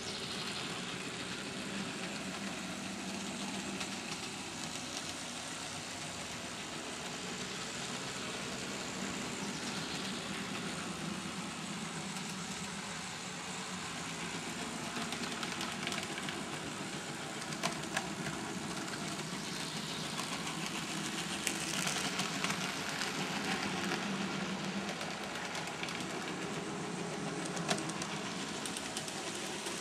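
Model trains running on a layout: the steady whir of small electric locomotive motors and wheels rolling on track, with a few sharp clicks.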